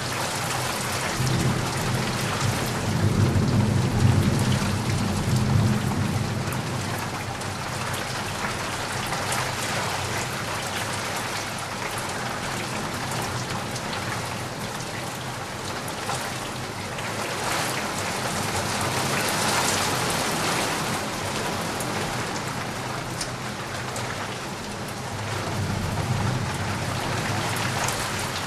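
Steady heavy rain with drops tapping, and a low rumble of thunder that swells in the first few seconds and again near the end.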